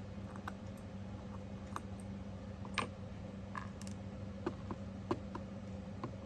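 Scattered small metallic clicks from a copper TopB fidget slider being worked back and forth, its spring-loaded ball detents snapping in, the sharpest click about three seconds in. A steady low hum runs underneath.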